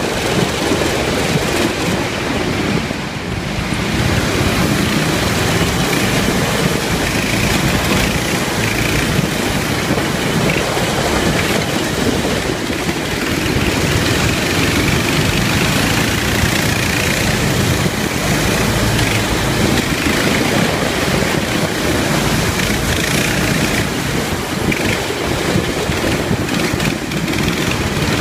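Bumper cars running around an arena, heard from aboard one: a steady, loud engine-and-motion noise with no pauses.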